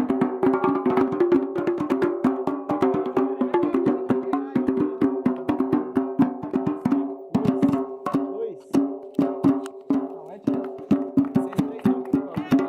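Percussion music: a fast, even rhythm of sharp hand-struck beats over steady held tones. The beating thins out and softens for a moment a little past the middle.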